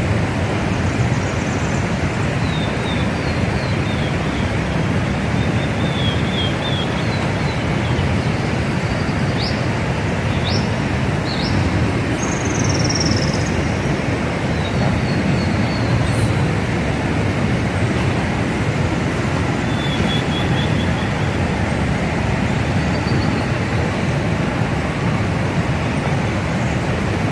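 River rapids rushing in a steady, loud wash of water noise, with birds chirping here and there over it.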